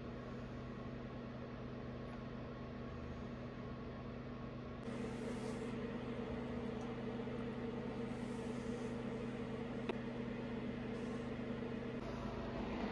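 Steady low hum of running machinery, a little louder from about five seconds in, with a single faint click near the ten-second mark.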